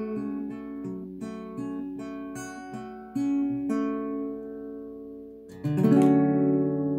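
Acoustic guitar played fingerstyle: a slow picked arpeggio of single notes, about three a second, then a louder strummed chord about five and a half seconds in. The chord rings on as the closing chord of the song.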